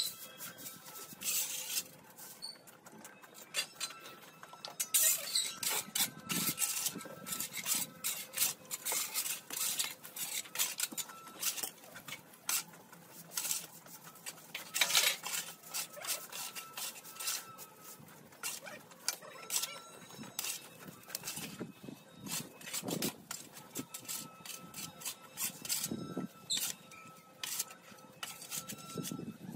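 Stiff brooms sweeping dry leaves and twigs across a concrete yard, in irregular scraping strokes with knocks and clatter as the debris is moved.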